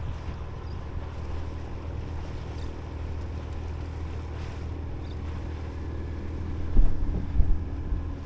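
Boat engine running steadily at an even pitch, with two low thumps about a second apart near the end.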